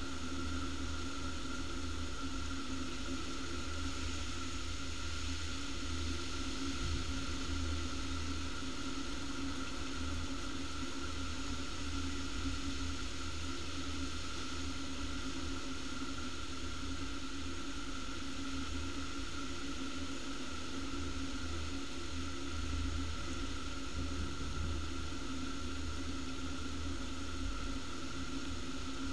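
Heavy rain pouring down in a thunderstorm: a steady, unbroken hiss of falling water with a low, fluctuating rumble underneath.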